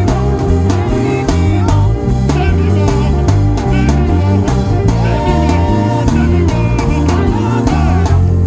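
Band music with drum kit, bass and guitar playing a steady, driving beat.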